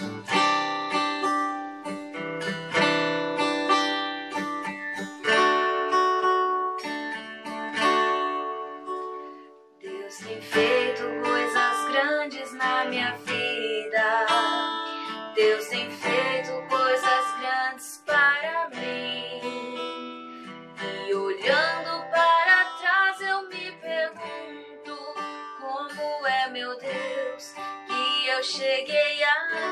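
Background music: acoustic guitar strumming chords, joined about ten seconds in by a wavering lead melody.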